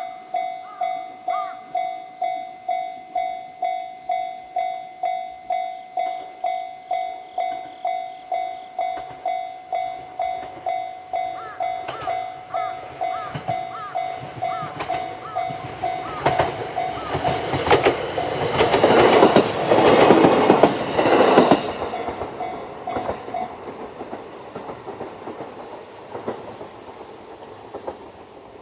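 Japanese level-crossing warning bell, the JR standard electronic tone, ringing about twice a second while a JR EV-E301 series battery train passes through the crossing. The train's wheels click over the rail joints, and the passing is loudest about two-thirds of the way in. The bell stops a little after that, leaving the train fading away.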